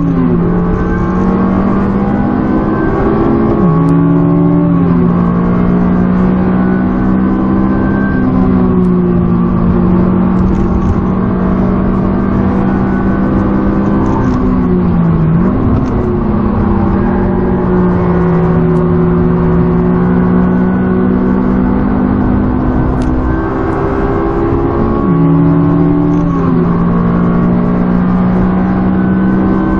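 Honda 2.0-litre four-cylinder engine pulling hard on a track lap, heard from inside the cabin. The note holds fairly steady for long stretches and drops in pitch a few times, around 4, 15 and 25 seconds in.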